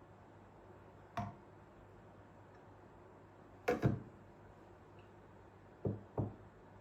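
A few short knocks of hard objects being handled: one about a second in, a quick double knock in the middle, and two more near the end, over a faint steady hum.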